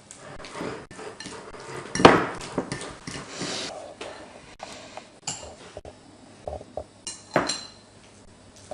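Dishes and cutlery clattering: a run of separate knocks and clinks, the loudest about two seconds in and another strong one at about seven and a half seconds.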